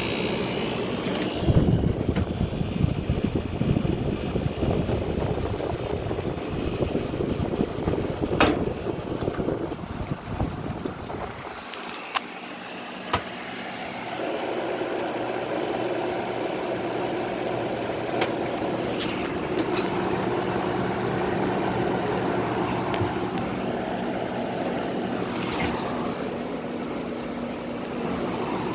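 Gibson 5000 BTU window air conditioner running with its compressor and fan on, a rough, fluctuating noise at first, then after a brief dip with a couple of clicks about halfway through, a steady hum. A few sharp clicks are scattered through it.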